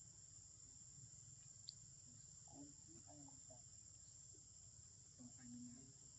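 Faint, steady, high-pitched drone of forest insects, with one short high chirp about two seconds in.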